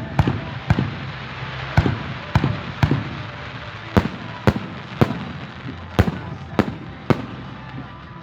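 Fireworks going off: about a dozen sharp bangs at uneven intervals, some close together in pairs, over a steady background hiss.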